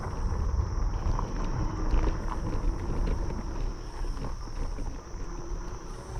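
Riding noise from a fat-tire electric bike: wind buffeting the microphone and the tires rolling over the path as a rough low rumble with small irregular knocks. A steady high whine runs throughout.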